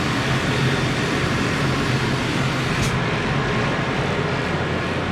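Electrovert Electra 500F wave solder machine's preheat section with its four convection blowers running: a steady rushing noise over a low hum.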